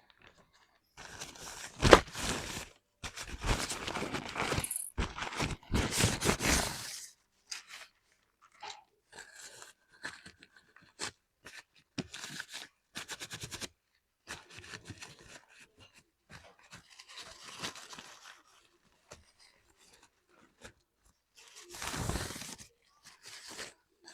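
Hand tools working a small piece by hand: several seconds of dense scraping and crunching strokes, then scattered clicks, taps and short scrapes, and another scraping burst near the end.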